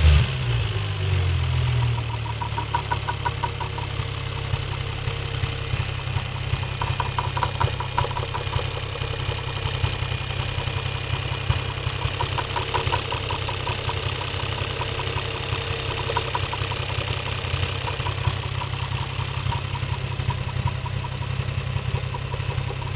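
Toyota 1JZ-GTE VVT-i turbocharged inline-six settling to idle about two seconds in, then idling steadily. A rapid knock comes and goes over the idle: the engine knock the owner is showing.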